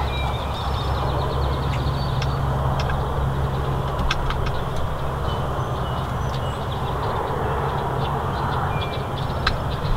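Steady low outdoor rumble with a constant hiss, with faint songbird chirps and a short trill over it and a couple of sharp clicks, one about four seconds in and one near the end.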